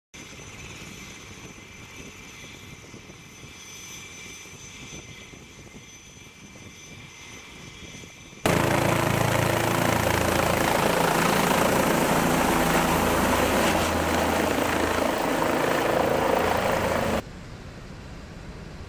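Medical helicopter turbine and rotor noise in three edited sections. First a quieter steady turbine whine. About eight seconds in, a sudden cut to a loud helicopter flying low and close overhead, its rotor thumping over the turbine, for about nine seconds. Then it cuts off abruptly to quieter steady noise.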